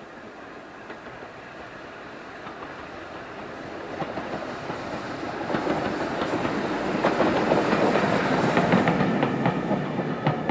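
LBSCR Terrier 0-6-0 tank engine and a single carriage running past. The sound grows louder as they approach, with the wheels clicking over the rail joints, is loudest a little before the end and then begins to fade as the carriage goes by.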